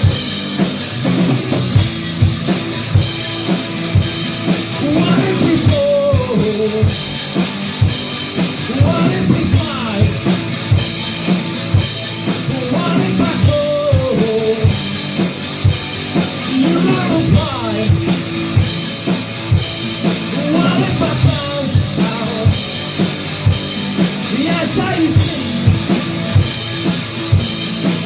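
Live rock band playing an instrumental passage without vocals: a drum kit keeps a steady beat on bass drum and snare under guitar lines that bend in pitch.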